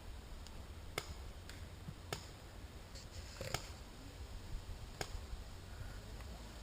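Faint, sharp pops of paintball markers firing in the distance, four shots spaced about a second or so apart, over a low rumble.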